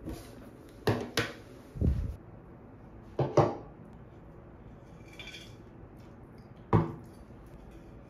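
Knocks and taps of a tablet in its case and other small things being handled and set down on a hard desk: two knocks about a second in, a duller thump near two seconds, a quick double knock a little past three seconds, and one more near seven seconds.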